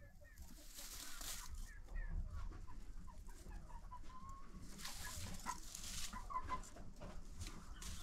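Dry straw rustling in two stretches, about a second in and about five seconds in, as a broody turkey hen tosses straw over her back on her nest. Short soft clucks and chirps from poultry run throughout.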